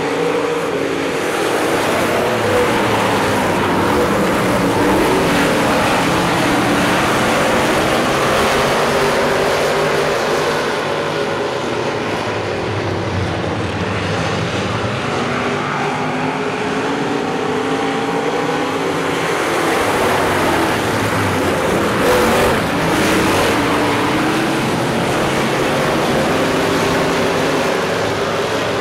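Several dirt-track Hobby stock car engines running together at racing speed, their pitches rising and falling as the pack circles the oval. One surge, late on, is louder than the rest as cars pass close.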